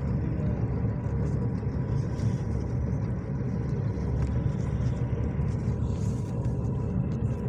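Steady low rumble of engine and road noise heard from inside a moving vehicle's cabin.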